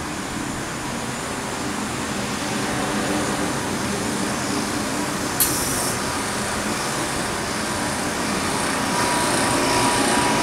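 Steady roar of laboratory ventilation and fume-hood exhaust air, with one sharp click about five seconds in and a thin steady whine joining near the end.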